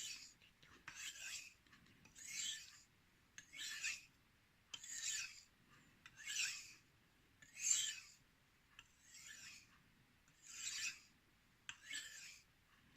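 A knife blade scraping across a 5000-grit whetstone in about nine even strokes, one every second and a half or so. These are alternating single strokes on each side, used to refine the edge once a burr has been raised.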